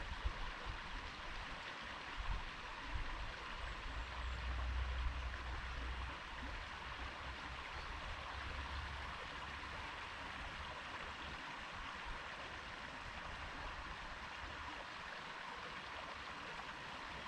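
A stream flowing and babbling steadily over rocks. A low rumble rises under it a couple of seconds in and fades out about halfway through.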